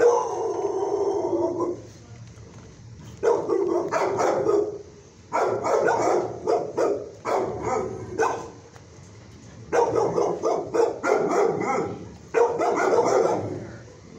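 Kennel dogs barking in repeated volleys of rapid barks, each a second or two long, with short pauses between.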